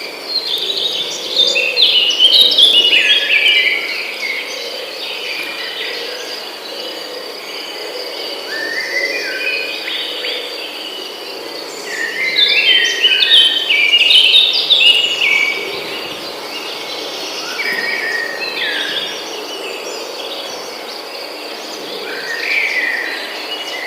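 Forest birds singing in recurring phrases of quick, stepped chirping notes, loudest about a second in and again around twelve seconds in, over a steady high insect trill.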